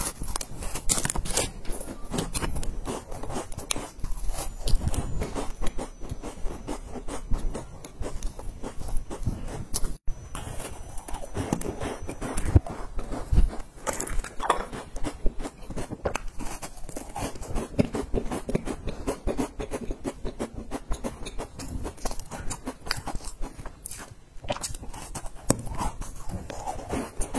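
Close-miked crunching and chewing of crisp, crumbly cookies and puffed-rice bars: a dense, continuous run of crackly bites.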